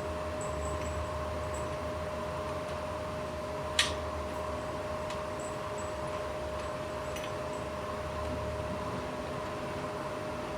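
Steady mechanical hum with a constant mid-pitched tone, broken by one sharp click a little under four seconds in and a faint tick later.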